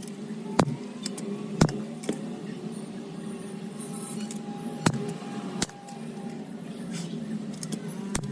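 A few sharp single cracks spaced a second or more apart, over a steady low hum: an upholstery staple gun fastening fabric to a dining chair frame.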